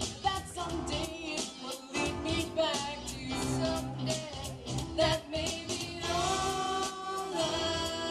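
Two female voices singing a pop song through microphones, over an accompaniment with a steady beat.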